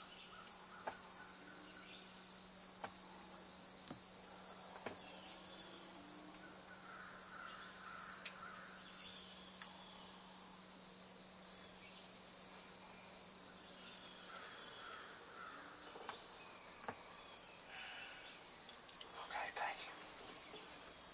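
Steady, high-pitched chorus of insects, unbroken throughout.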